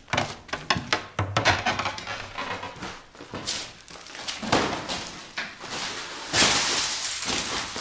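Footsteps and knocks from a bucket of concrete mix being carried. About six seconds in comes a longer, louder rush of noise as the mix is tipped out onto the floor.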